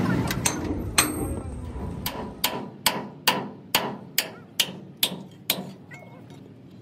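Hammer striking repeatedly: about a dozen sharp blows, first spaced out, then settling into a steady run of two to three a second. A low rumble fades out under the first blows.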